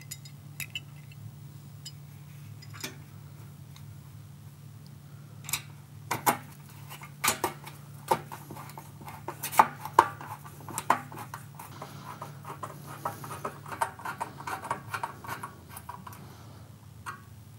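Hand screwdriver driving stainless steel screws through a metal door keeper into an aluminum door jamb: scattered metal clicks and clinks, thickening about eleven seconds in into a fast run of small ticks and scrapes as a screw is turned. A low steady hum runs underneath.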